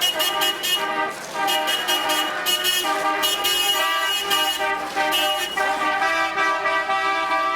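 City street traffic with car horns honking: a string of short horn beeps, then a long held horn blast from about five and a half seconds in.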